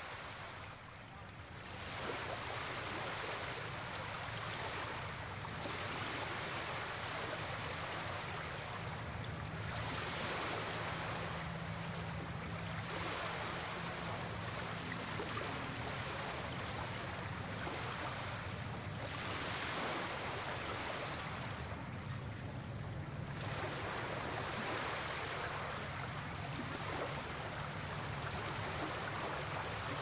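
Sea waves washing ashore, a hiss of surf that swells and ebbs every few seconds, with a faint low hum underneath.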